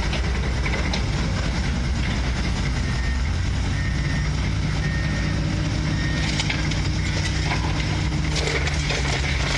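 Engine running at a steady idle, with a few faint knocks in the middle.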